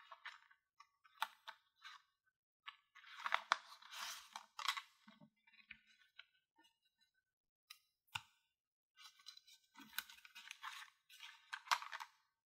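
Miniature plastic toy kitchen pieces and their packaging being handled: crinkling rustles with light clicks and taps, busiest about three seconds in and again near the end.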